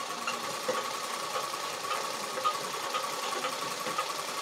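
Black straight-stitch sewing machine running steadily as fabric is fed under the needle.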